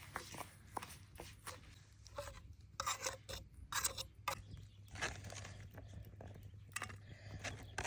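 Irregular scraping and rubbing of kitchen utensils, with short clicks, over a steady low hum.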